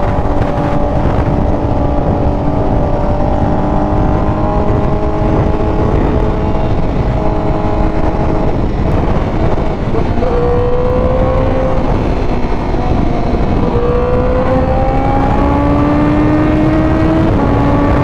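Honda CBR1000RR-R Fireblade SP's inline-four engine running under way over a steady rush of wind, its pitch sagging slightly, then rising as the bike accelerates about ten seconds in and again near the end.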